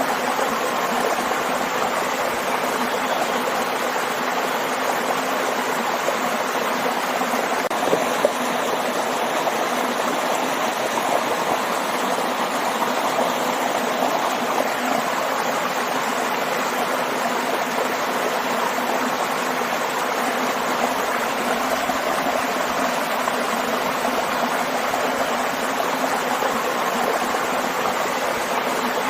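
Waterfall and stream: steady rushing and splashing of flowing water.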